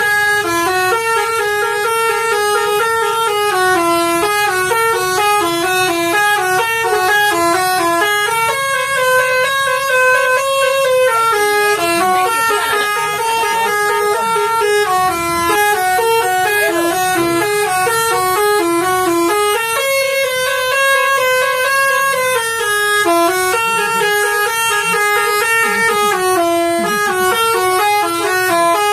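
Telolet bus horn, a multi-trumpet air horn, playing a fast stepping melody of short notes without a break. The tune repeats about every eleven seconds, each phrase ending on a few longer held notes.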